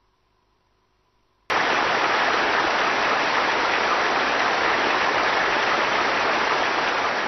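Steady, even hiss of noise, like static, that starts abruptly about a second and a half in after near silence and holds at a constant level.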